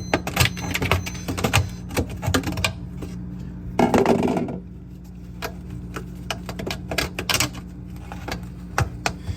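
Rapid, irregular clicks and taps of a hand tool chipping and scraping at frost ice built up inside a refrigerator's freezer wall, with a louder stretch of scraping and crunching about four seconds in. A steady low hum runs underneath.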